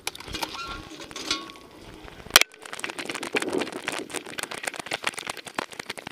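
A camera strapped to a dog, picking up irregular rubbing, crackling and clicking from its mount as the dog moves, with one sharp loud knock about two and a half seconds in.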